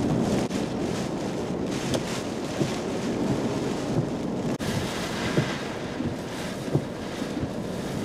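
Strong hurricane wind buffeting the microphone in a steady rush, with wind-driven rain and a few light knocks scattered through it.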